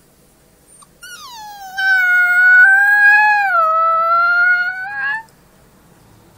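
Wolf pup howling: one long howl that starts about a second in, slides down in pitch at first, holds fairly steady with a slight dip, and flicks briefly upward just before it stops.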